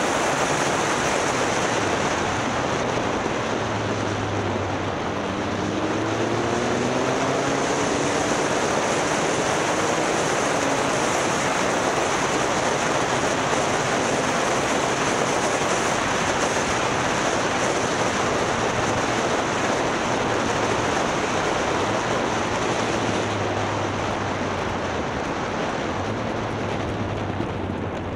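Motorcycle riding offroad: heavy wind rushing over the microphone, with the engine running underneath and its note rising a few times about five seconds in.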